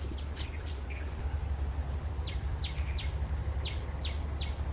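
A bird calling: a run of six short, steeply falling chirps from about two seconds in, over a steady low rumble.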